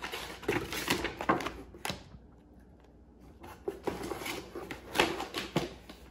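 Tissue paper and packaging rustling and crinkling as they are handled inside a cardboard box, in irregular bursts, with a pause about two seconds in.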